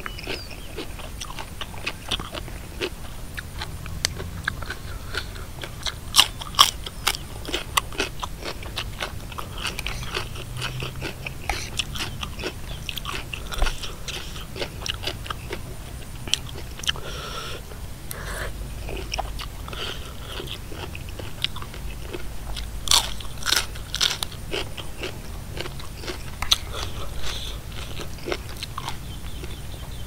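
A person chewing and biting a spicy Thai papaya salad with chicken feet and mixed seafood close to the microphone: many crisp crunches, heaviest around six to seven seconds in and again around twenty-three to twenty-four seconds in.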